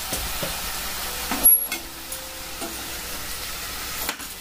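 Sliced brinjal sizzling in oil and tamarind water in a steel kadai while a steel spoon stirs it, scraping and knocking against the pan; the loudest knock comes about a second and a half in.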